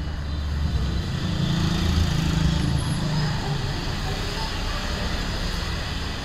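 Engine rumble of a small delivery truck and a passing motorbike, over steady street traffic noise; it swells briefly about two seconds in.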